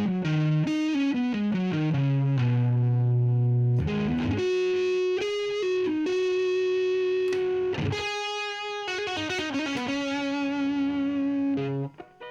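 Electric guitar jamming over a riff laid down on a looper pedal, playing quick single notes and long held notes through effects. The level drops off suddenly near the end.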